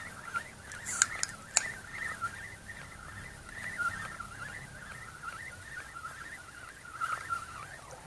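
Frogs croaking in a continuous warbling chorus on a summer night by a river, with a couple of faint clicks about a second in.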